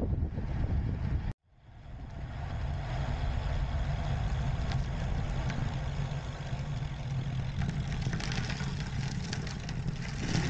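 Steady low rumble and hum of riding a bicycle on a road: wind and road noise on a mounted camera's microphone. The sound cuts out briefly about a second and a half in, then fades back up.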